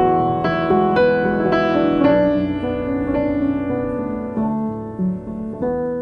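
Background music: a gentle solo piano piece. Notes are struck about every half second at first, then more slowly, and the music grows quieter toward the end.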